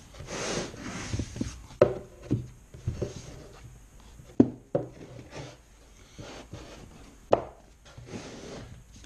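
Wooden paddle boards scraping and knocking against plywood discs as they are fitted into a water wheel: a sliding rub at first, then several sharp wooden knocks.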